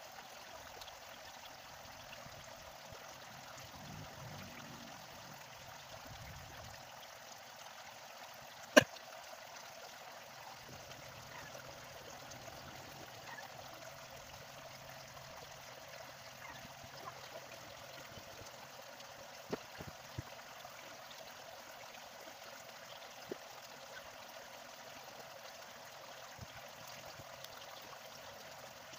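Steady background hiss with a few light clicks and taps from parts being handled on a phone-repair bench; one sharp click stands out about nine seconds in.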